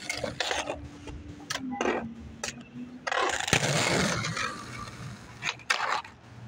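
Skateboard on pavement: a run of sharp clacks from the board and wheels hitting the ground, and a loud scraping, rolling rush a little past the middle.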